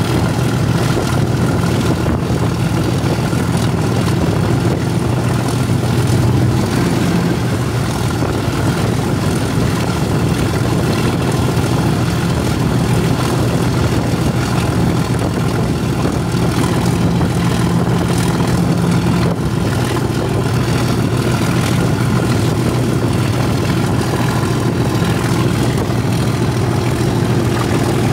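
Class 37 diesel-electric locomotive's English Electric V12 engine running steadily under power just ahead, pulling the train up the gradient. A thin, steady high whistle from the turbochargers sits over the engine note, and wheel and rail noise runs beneath it.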